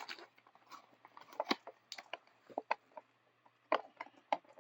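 Toy packaging being worked open by hand: scattered crinkles and sharp clicks at irregular intervals, with a few louder snaps about a second and a half in and again near the end.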